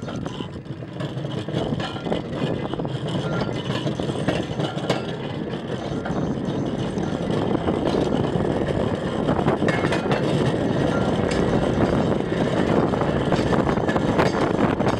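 Hand-pumped railroad pump cart rolling along the track: a steady rumble of its steel wheels on the rails, growing louder about halfway through.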